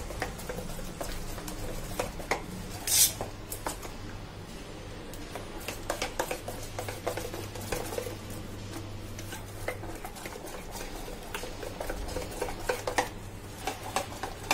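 A spoon stirring thick gram-flour batter in a stainless steel bowl, with irregular clicks and scrapes of the spoon against the bowl and one louder knock about three seconds in. The batter is being beaten smooth so that no lumps remain.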